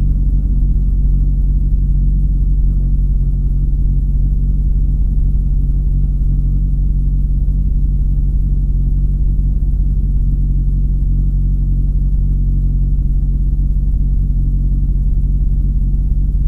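Volvo 940 rally car's engine idling steadily at an unchanging pitch, heard from inside the cabin.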